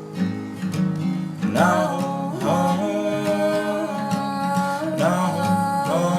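Music: a strummed acoustic guitar with wordless singing, long held and sliding vocal notes coming in about a second and a half in.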